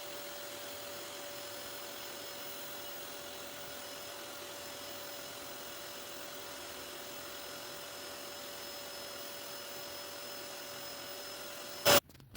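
Vacuum cleaner running steadily with a constant hum, then a loud click near the end as it cuts off suddenly.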